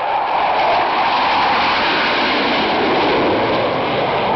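Loud, steady jet engine noise from Blue Angels F/A-18 Hornets flying overhead.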